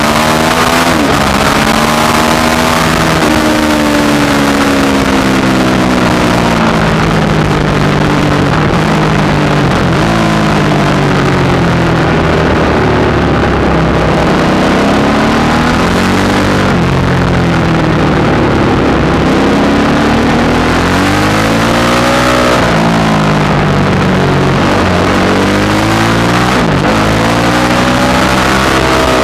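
Supermoto motorcycle engine heard onboard at speed, its pitch climbing under acceleration and dropping back again and again as the bike laps, over a steady rush of wind noise.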